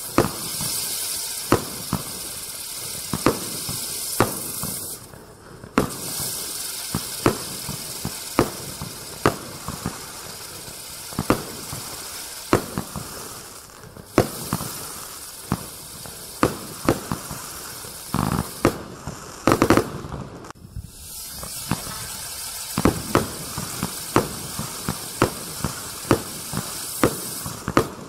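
Cyclone Wheel firework, a spinning Catherine-style wheel, burning with a steady hiss of sparks and frequent sharp cracks about once or twice a second. The hiss drops out briefly a few times.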